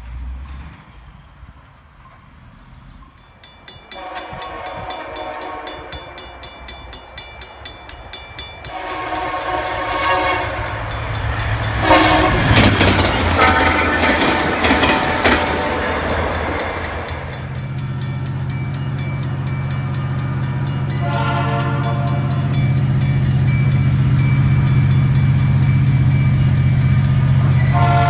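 Diesel locomotive horn of an approaching VIA Rail passenger train, sounded in several long blasts and one short one and growing louder as the train nears. In the second half the locomotive's engine runs underneath as a steady low drone.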